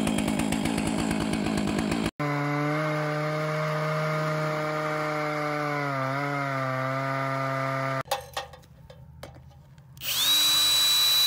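Chainsaw mill cutting the top slab off a log at full throttle. Its pitch dips briefly about six seconds in as it loads in the cut. The sound is broken by edits, with a short quiet spell and a high whine near the end.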